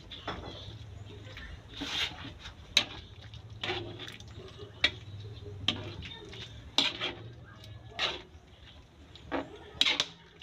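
A spatula stirring a thick tomato stew in a steel wok: repeated short scrapes and knocks against the pan, roughly one a second, with the sauce sloshing.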